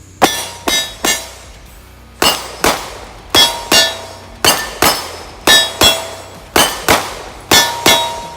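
A 9mm CZ P-10 C pistol fired in quick pairs, about fifteen shots, each crack followed by a short metallic ring, typical of steel targets being hit.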